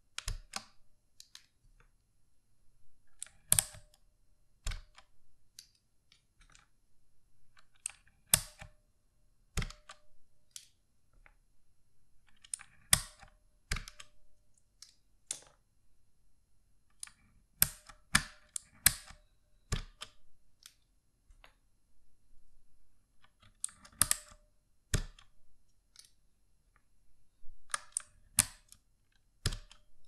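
Plastic keycaps being pried one at a time off a Redragon Kumara K552 mechanical keyboard with a wire keycap puller. Each comes off with sharp plastic clicks and clacks, in small clusters every second or two.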